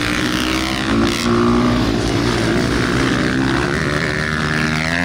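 Dirt bike engines running on a motocross track, revving up and down as the bikes ride, so the engine note keeps shifting in pitch.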